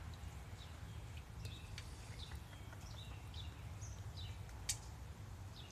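Faint, scattered short chirps of small birds, each a quick downward sweep, with one sharper chirp about three-quarters of the way through, over a low steady outdoor rumble.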